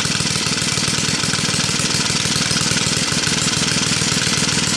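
Small single-cylinder gasoline engine running steadily at a fast, even beat on fuel dosed with sugar, still running.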